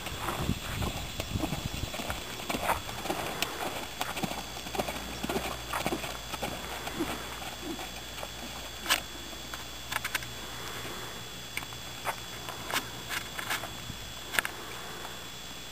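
Hoofbeats of a ridden horse moving over a sand arena: soft, irregular thuds, with a few sharper clicks near the middle and end.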